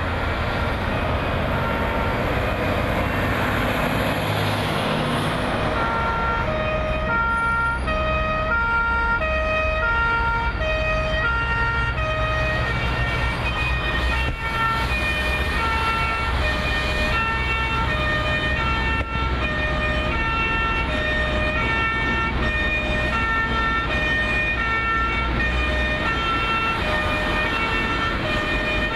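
Two-tone emergency vehicle siren alternating between a low and a high note, each held about half a second, starting about six seconds in, over a steady low rumble. Before the siren comes in, a loud rushing noise.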